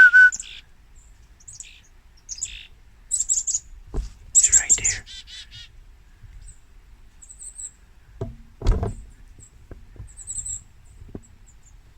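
Chickadees calling: short, high chip notes, then about four and a half seconds in a chick-a-dee call with a run of buzzier repeated notes, with scattered single chips after. Two low thumps, about four seconds in and the louder one near nine seconds.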